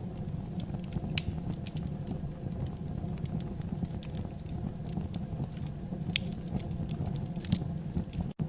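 Wood fire burning in a fireplace: a steady low rumble of flames with frequent, irregular sharp crackles and pops. The sound cuts out for a split second near the end.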